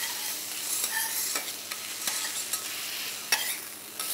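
Marinated chicken thigh pieces sizzling in hot oil on a flat pan, a steady crackling hiss with a few sharp clicks, the loudest about three seconds in.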